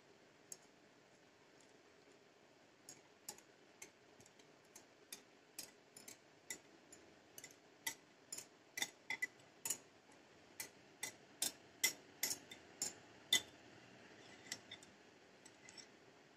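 Metal wire whisk tapping and scraping against the rim of a glass bowl and a plastic tub while the thick mango mixture is scraped out: a run of faint, irregular light clicks, one or two a second, that grow louder toward the middle.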